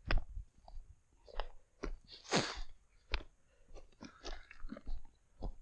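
Footsteps crunching on loose limestone scree and broken rock, in an irregular walking rhythm, with one longer, louder crunch about two seconds in.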